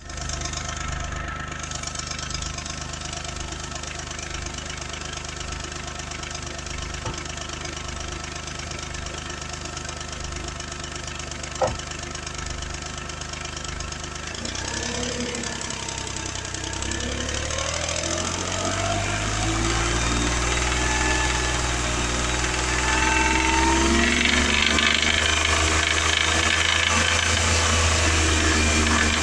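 Smart 450 car engine idling steadily, with a single sharp click about halfway through. The engine then revs up gradually to about 3000 rpm and holds there. The engine has a noise that the owner is checking against its oil pressure.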